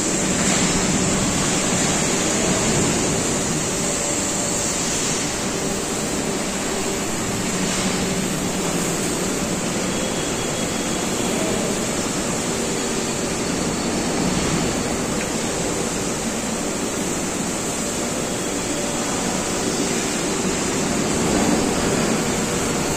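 Steady industrial din of a scrap-metal smelter hall: a dense, even hiss with a faint machine hum underneath and no distinct crashes of falling metal.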